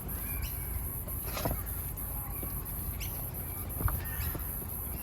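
A few short scrapes of a filler knife working two-part filler and its red hardener together on a mixing board, over a steady outdoor background.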